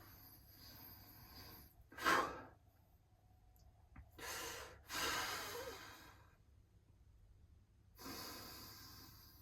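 A person taking slow, deep breaths in and out, with a short, sharper breath about two seconds in.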